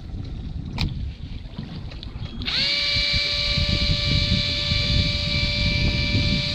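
Electric jigging reel's motor starting about two and a half seconds in, climbing quickly to a steady high whine as it winds in line, over low wind rumble.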